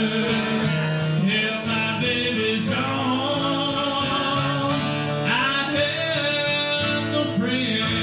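Live band performing a song: voices singing over a strummed acoustic guitar and other sustained instrumental backing.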